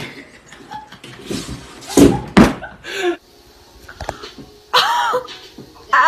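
A wooden wardrobe door knocking twice, about half a second apart, as a cat clambers on its top edge; a short vocal exclamation follows near the end.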